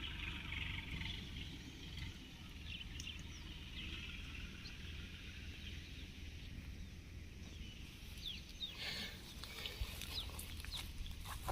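Faint bird calls, short high chirps that grow busier in the last few seconds, over a steady low rumble.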